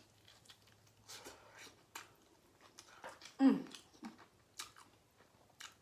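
Close-up chewing and wet mouth smacks of someone eating rotisserie chicken, with scattered sharp clicks. About three and a half seconds in comes one brief vocal sound, falling in pitch.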